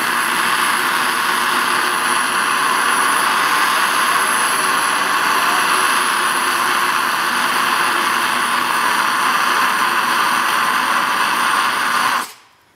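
Homemade turbocharger jet engine, its turbo bearings worn out, running with a loud steady rush and a high thin whine. Near the end it shuts down suddenly when the turbine hits something.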